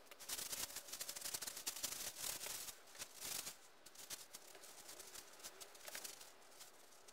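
Faint rustling and rubbing of a cloth wiping a screwdriver, a dense run of small crackles that is busiest in the first three seconds or so and thins out after.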